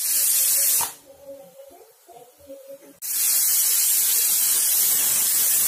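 Stovetop pressure cooker whistling: steam hisses out loudly past the weight valve in two bursts, a short one at the start and a long steady one from about three seconds in. This is the cooker at full pressure, counted whistle by whistle to time the chicken.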